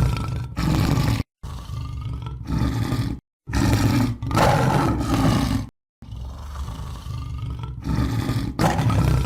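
A string of deep tiger roars, about eight in quick succession, each lasting up to about a second and a half. Several are cut off abruptly into dead silence, like spliced sound-effect recordings.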